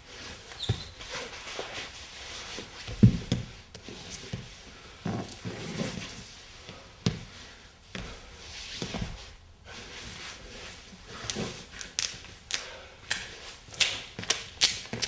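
Irregular thumps, scrapes and taps of a dancer's body and his lead-coated gloves and shoes moving on the floor. The dull thumps come in the first half, and the knocks turn into quicker, sharper taps and clicks toward the end.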